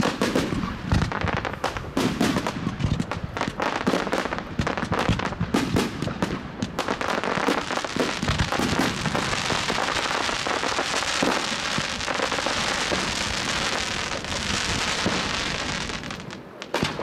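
Consumer firework cakes firing: shots and bursts come thick and fast for the first several seconds. From about seven seconds in they merge into a dense, continuous crackle of crackling stars, which stops shortly before the end.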